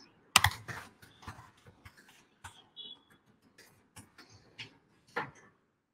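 Scattered sharp clicks and taps, irregularly spaced at about two a second, the loudest about half a second in, with one brief high beep near the middle.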